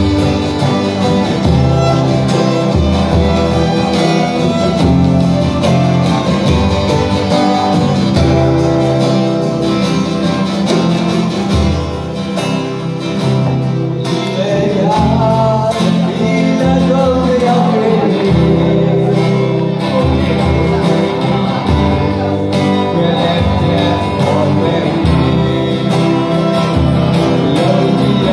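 Live acoustic band music: a violin melody over strummed acoustic guitars and an electric guitar, with a man singing.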